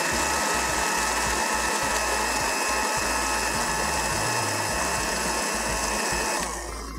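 Countertop electric blender running steadily with a motor whine, grinding a thick paste in its jar, then switching off about six and a half seconds in.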